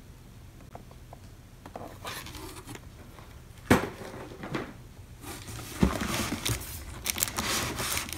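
Cardboard boxes and plastic-wrapped packaging being handled: rustling and scraping, with two sharp knocks, one about a third of the way in and another about two thirds through.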